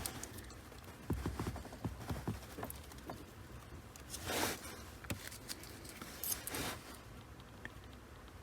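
Faint handling noises of hand wiring work as a car alarm's ignition wire is spliced into the ignition-switch wiring: scattered small clicks and taps, a few low knocks a little after one second in, and two brief rustles about four and a half and six and a half seconds in.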